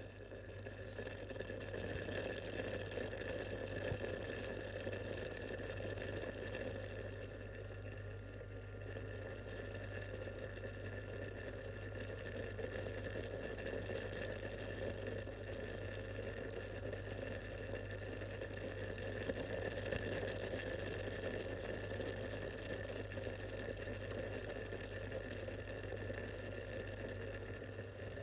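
Liquid boiling steadily in a large cooking pot, a constant bubbling over a steady low hum.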